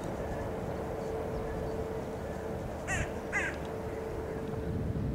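Steady low rumble of a container freight train crossing a steel truss railway bridge, with a steady hum. About three seconds in, a bird calls twice in quick succession.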